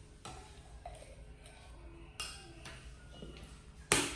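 A plastic scoop clinking and scraping in a tin of milk formula and at a plastic baby bottle: a few light clicks and clinks. Near the end comes one loud sharp snap as the plastic lid is pressed down onto the formula can.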